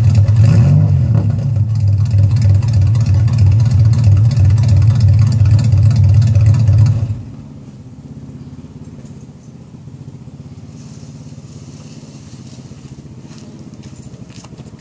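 The exhaust of a 1989 Chevrolet Cavalier Z24's 2.8 L V6, straight-piped with the rear resonator section removed, running loud at raised revs with a quick rise in pitch under a second in. About seven seconds in it drops suddenly to a much quieter, steady idle.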